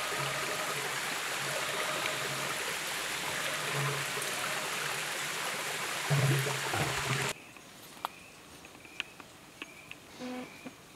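Steady rush of a flowing river stream, cutting off suddenly about seven seconds in to a much quieter background with a few sharp clicks.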